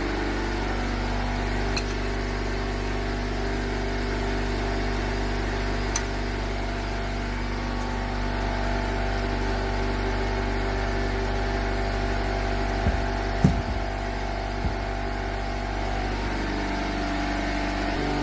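A steady machine hum runs throughout. A few sharp metal clanks come near the end as a breaker bar is fitted to the axle nut.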